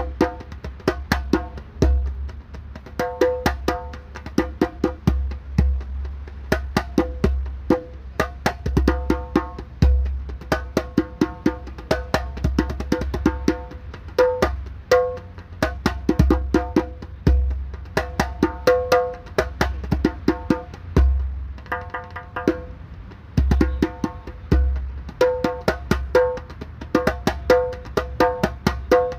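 Solo djembe played with its head at low tension, in fast, dense rhythmic strokes. Ringing tones sound repeatedly on one pitch between them. A steady low rumble, a bus engine, runs underneath.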